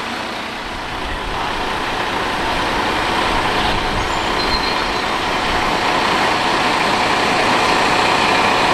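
Heavy tractor unit's diesel engine running steadily, growing gradually louder.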